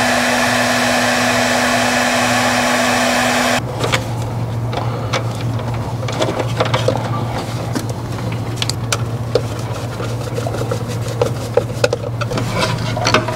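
Bosch electric heat gun blowing steadily with a held whine while shrinking heat-shrink sleeving onto cable cores, then switched off about three and a half seconds in. Small clicks and knocks of cable cores and a screwdriver being worked into the socket's terminals follow, over a low steady hum.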